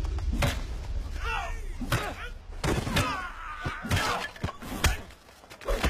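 Film fight sound effects: a rapid series of punch and kick thuds and whacks, with men grunting and shouting between the blows.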